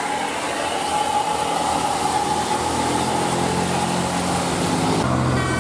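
Roadside traffic noise from a passing tour bus: its engine running with a steady hiss of road and tyre noise. The engine note grows stronger from about halfway through.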